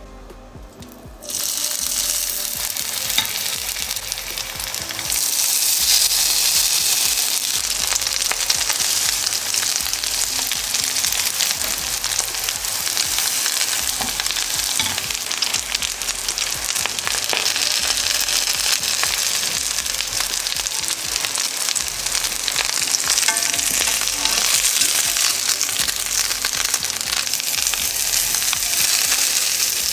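Breaded cabbage rolls frying in a pan: a steady sizzle with fine crackling that starts suddenly about a second in and gets louder about five seconds in.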